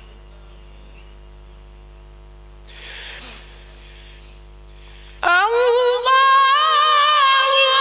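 Quran recitation (tilawat): after a pause holding only the sound system's steady hum and a short hiss, a male qari begins a new phrase about five seconds in, sliding up in pitch and then holding a long, high, wavering melodic note through the microphone.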